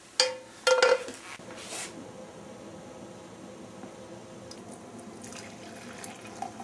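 Two sharp clanks of metal kitchenware with a short ringing tone, about a quarter second and three-quarters of a second in, then a steady watery hiss.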